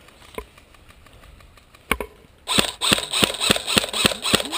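Airsoft rifle firing: a single shot a little before two seconds in, then a rapid string of shots, about four a second, from about halfway on.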